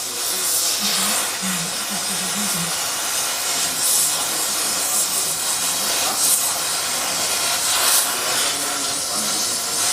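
A loud, steady hiss, like air or spray rushing out under pressure, swelling briefly a few times.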